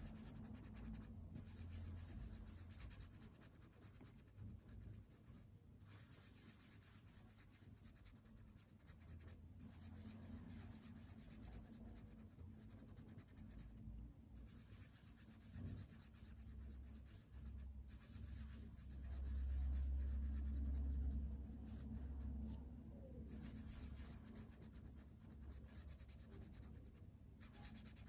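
Marker scribbling on paper as circles are coloured in, faint, with brief pauses between strokes. There is a low rumble about two-thirds of the way through.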